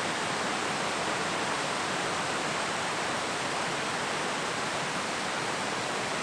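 Waterfall of several small cascades rushing steadily, an even hiss of falling water with no let-up.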